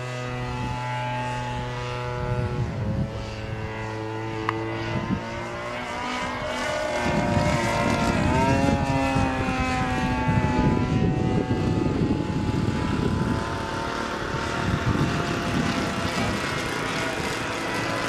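Seagull Edge 540 radio-control model plane's 26cc petrol engine and propeller in flight, the engine note rising and falling in pitch as the plane manoeuvres. A gusty low rumble joins in from about seven seconds in.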